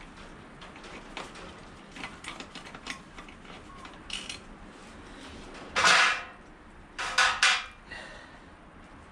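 Metal hand tools and brake parts clinking and clattering while a motorcycle's rear brake caliper is being removed. There is a loud metallic clank about six seconds in and two or three more about a second later.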